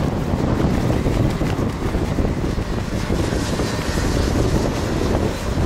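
A pack of two-stroke racing kart engines running on track as the karts pass through a corner, heard through heavy wind noise on the microphone.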